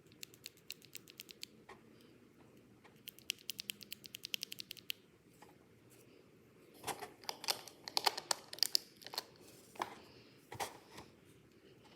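Typing on a mechanical keyboard fitted with Akko Rose Red linear switches: runs of key clicks, a quick steady run of about ten keystrokes a second a few seconds in, then louder, irregular clacks in the second half.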